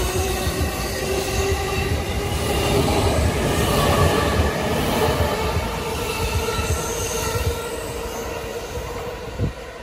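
E217-series electric multiple unit running past close by and pulling away. Wheels rumble on the rail under a steady whine. The noise fades as the last car goes by near the end, with one short knock just before it ends.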